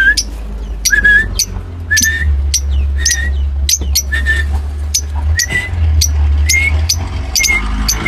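A man whistling short notes about once a second, answered by caged lovebirds with sharp, high-pitched chirps in between.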